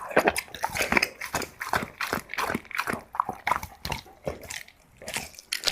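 A dog chewing soft, wet food close up: a quick, irregular run of wet smacks and clicks of the jaws, several a second, easing off briefly near the end.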